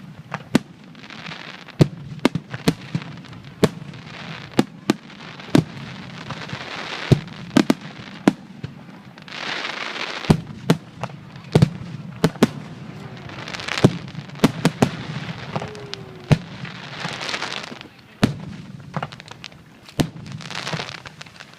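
Starmine fireworks barrage: dozens of sharp shell bursts in quick, irregular succession, several a second at times, over a continuous crackling hiss from the exploding stars.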